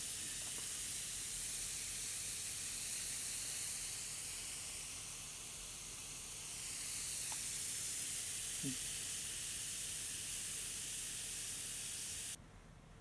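Brownish liquid in a plastic cup fizzing steadily, a fine hiss of many small bubbles bursting at its foamy surface from a chemical reaction. The fizz dips briefly a little past the middle and cuts off suddenly near the end.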